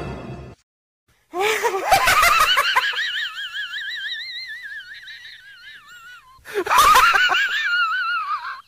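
A man's laugh, very high and wavering like a cartoon voice, in two long stretches: the first starts about a second in and fades away, the second starts near the end.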